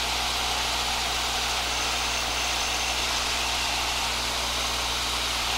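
Steady drone of a Piper PA-22/20 Pacer's 135-horsepower engine and propeller with wind noise, heard from inside the cabin, held constant during slow flight around 70–75 mph.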